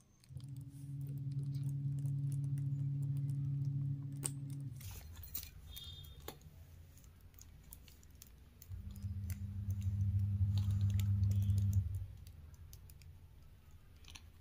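Small metal clicks and clinks from a sling bag's gold-tone strap hooks and rings as the bag is handled. Two spells of a steady low hum lie under the clicks: one starts right away and lasts about four seconds, the other starts about nine seconds in and lasts about three.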